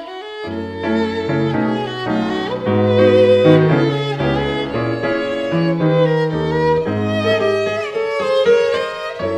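Instrumental music: a violin plays a melody over a lower string accompaniment, its bass notes moving every half second to a second.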